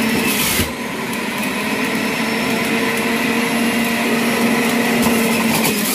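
Electric juicer motor running on high: a steady whine, a little louder for the first half second.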